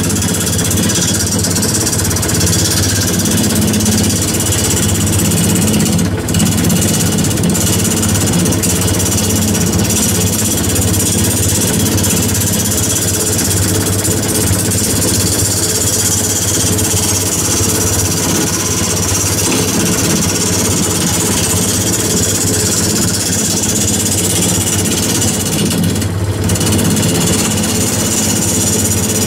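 Wood lathe running with a turning gouge cutting into a large spinning wooden blank: a steady motor hum under the loud noise of the cut and shavings thrown off. The cutting noise breaks off briefly twice, about six seconds in and near the end.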